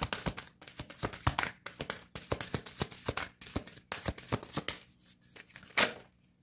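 A deck of oracle cards being shuffled by hand: a quick run of papery card flicks and slaps that stops about five seconds in, with one louder slap shortly after.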